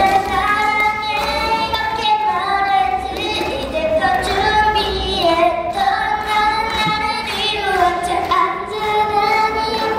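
Young girls singing a song into microphones, amplified over a backing music track.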